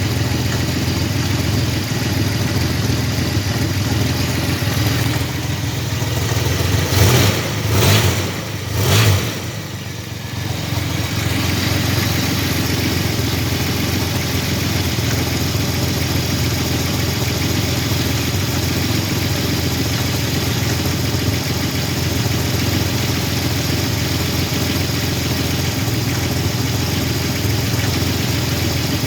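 1985 Chevrolet S10's carbureted 2.8 V6 idling steadily with an engine noise that the owner calls a knocking or something and cannot yet identify. About seven seconds in, the engine swells in level three times in quick succession, as if revved briefly, before settling back to idle.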